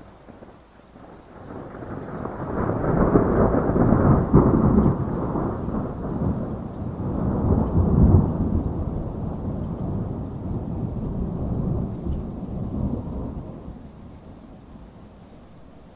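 A long rolling peal of thunder over steady rain: the rumble builds about a second in, swells twice, and dies away near the end.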